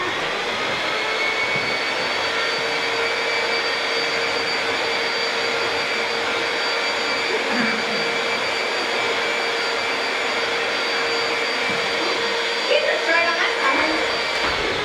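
Vacuum cleaner switched on, its motor spinning up to a steady whine over rushing air, running evenly, then switched off near the end and winding down. A voice speaks briefly over it shortly before it stops.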